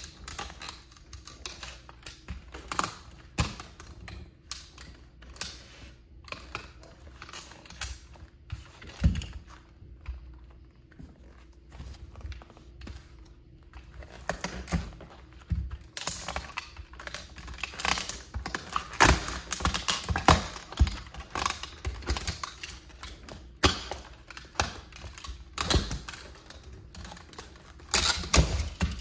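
Toy model Plymouth Prowler being crushed under high-heeled platform sandals: irregular cracking, snapping and crunching of its parts. The cracks thin out about ten to fourteen seconds in and come thick and fast from about sixteen seconds on.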